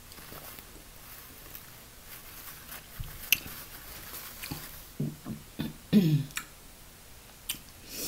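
Quiet sounds of a person drinking from a glass beer bottle and setting it down: soft swallows, a few light ticks and knocks about three to four seconds in, then several short, low hums or murmurs from the throat around five to six seconds in.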